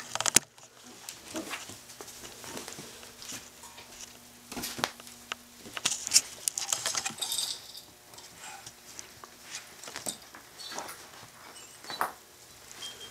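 Yorkie-poo puppies scampering on a ceramic tile floor: irregular light pattering and sharp clicks of small paws and claws. The pattering is busiest about six to seven seconds in.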